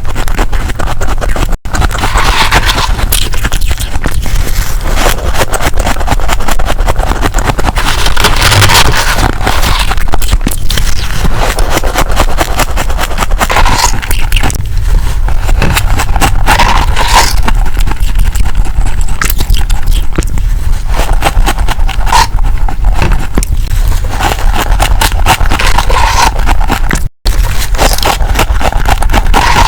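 Freezer frost being scraped and crunched right at the microphone: a loud, dense, continuous crackle of tiny clicks, broken by two very brief cut-outs.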